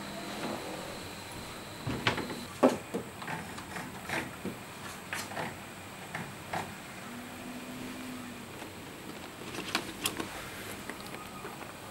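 Cardboard packaging being handled and opened: irregular knocks, taps and sliding scrapes, the sharpest about two to three seconds in and again near the end.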